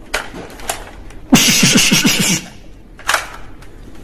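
Toy gun's electronic firing sound effect: a burst of about a second of hiss with rapidly repeated falling 'pew' tones, with a few plastic clicks before and after it.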